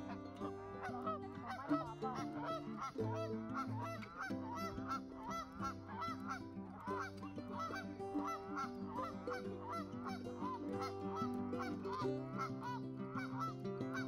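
Canada geese honking again and again, two or three short calls a second, over background music of slow, held chords.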